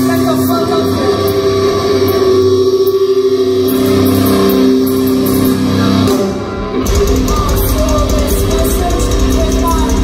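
Live metalcore band playing loud: held, ringing guitar chords with vocals, then a brief drop just before the seven-second mark and the full band crashing back in heavier, with a dense, pounding low end from drums and bass.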